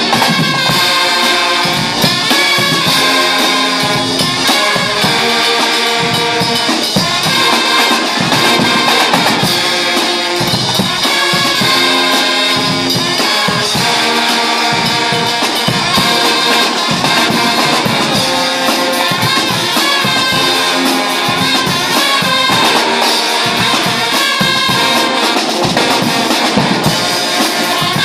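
A Guggenmusik carnival brass band playing live: trumpets, trombones and sousaphones over bass drums, cymbals and snare drums. It is loud and continuous, with a regular drum beat under the brass.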